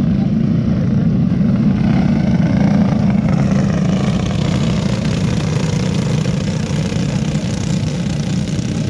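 A pack of racing go-karts' small engines running together at speed on a dirt oval, a steady loud buzz that swells a little as the pack comes by and then eases slightly.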